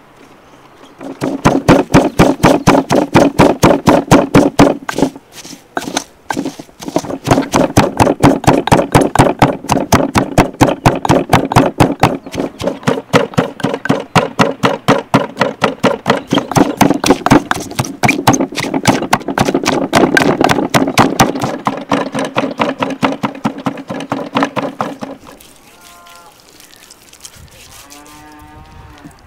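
Wooden pestle pounding chopped green onion, garlic and salt in an enamel bowl: fast, even knocks about five a second, with a short break, stopping a few seconds before the end.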